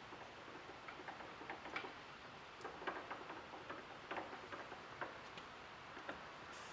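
Faint, irregular clicks and ticks from the manual carriage handwheel and apron gearing of a large engine lathe as it is cranked by hand, about one or two clicks a second.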